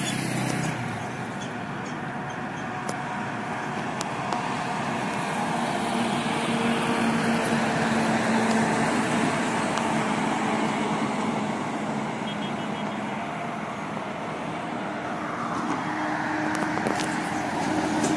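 Ashok Leyland sleeper coach driving past with engine hum and tyre rush, which swell to their loudest about eight to ten seconds in and then fade, over steady highway traffic noise.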